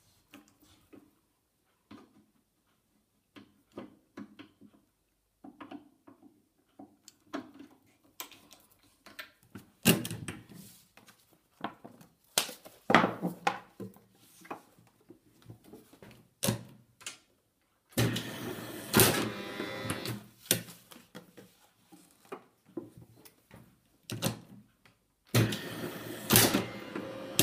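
Passe-partout mat-cutting machine being set and run: a string of clicks and knocks as stops and the knife are set, then two stretches of steady machine noise, each about two and a half seconds, as the knife head cuts through the mat.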